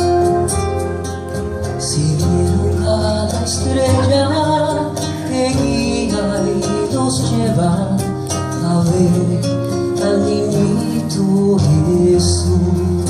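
Live band playing the instrumental introduction of a Christmas song, with a steady bass line under a melodic instrument, before the vocal comes in.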